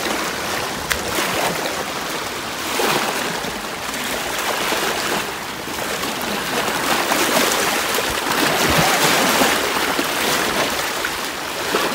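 Shallow sea water washing and splashing around a person wading thigh-deep, with small waves breaking on rocks. The rushing rises and falls as the waves come in.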